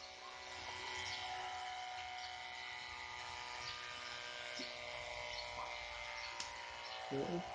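Small 12-volt DC high-pressure water pump running steadily, a hum and whine made of several steady tones, with a hose nozzle spraying a jet of water.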